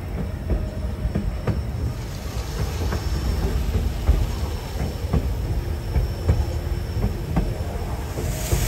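Narrow-gauge White Pass & Yukon Route railway car heard from aboard while rolling: a steady low rumble with scattered knocks and clicks from the wheels and couplings. A hissing rush comes in near the end.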